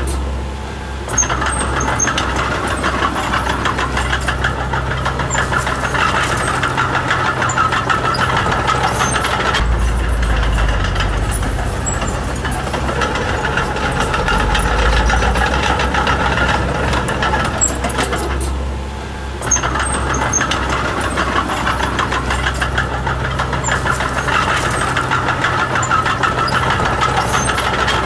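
Diesel engine of a Komatsu D20P mini bulldozer running steadily at work. It goes briefly quieter twice and has a heavier low rumble partway through.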